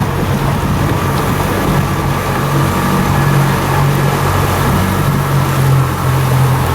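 Motorboat engine running steadily under way, a low even hum with a steady hiss over it.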